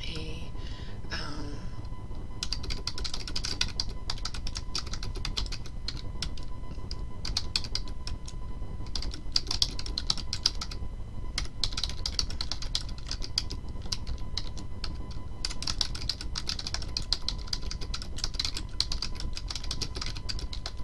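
Computer keyboard typing in quick runs of keystrokes, with short pauses between the runs.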